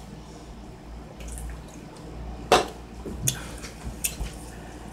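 A person drinking from a drink can with faint swallowing. About two and a half seconds in there is one sharp knock, followed by a few softer clicks.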